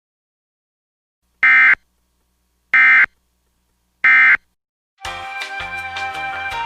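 Emergency Alert System end-of-message data signal: three identical short, harsh electronic blips, each under half a second, evenly spaced, marking the close of the alert. Music comes in near the end.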